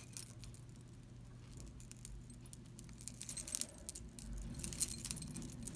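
Silvertone charm bracelet's metal and glass charms clinking and jingling faintly as it is handled, in scattered light clicks that come more often in the second half.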